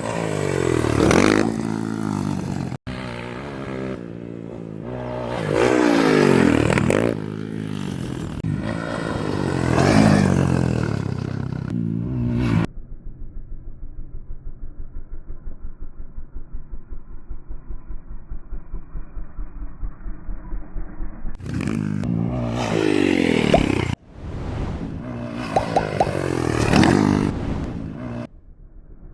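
Motocross motorcycle engines revving up and down across several edited clips, the pitch climbing and falling repeatedly. A muffled stretch in the middle carries a steady pulsing.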